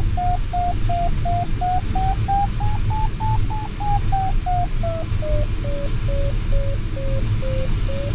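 Glider variometer beeping about three times a second, its pitch rising, sinking through the middle and climbing again near the end: the climb tone of a sailplane circling in a thermal, following the lift as it strengthens and weakens. A steady low rush of cockpit air noise runs underneath.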